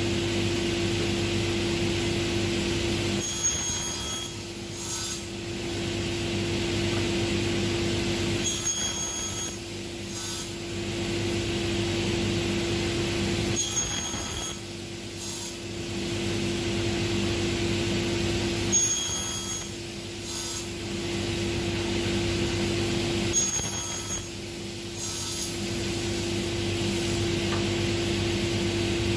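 Sliding-table panel saw running steadily while its blade crosscuts small wooden handle blanks, one cut about every five seconds, five in all.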